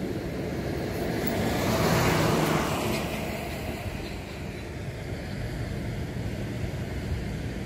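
Steady low rumble of road traffic, with a car passing close by about two seconds in, swelling and fading.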